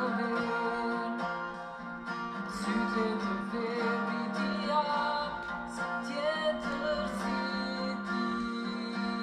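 Music with guitar and singing.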